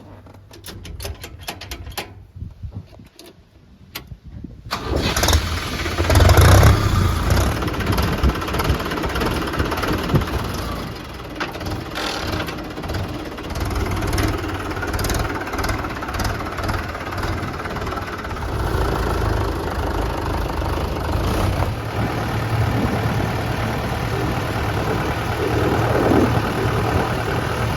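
A diesel engine of a heavy machine starting: a few seconds of faint clicking, then the engine fires about five seconds in, surges briefly and settles into steady running.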